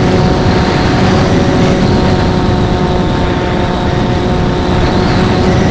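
Onboard sound of an FPV HammerHead flying wing in flight: a steady whine from its electric motor and propeller, the pitch holding level, under a heavy rumble of wind on the onboard microphone.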